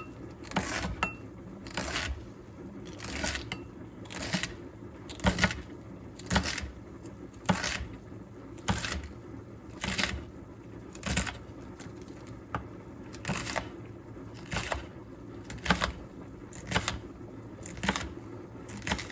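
Kitchen knife chopping onion and celery on a cutting board, one sharp cut about every second at an even pace.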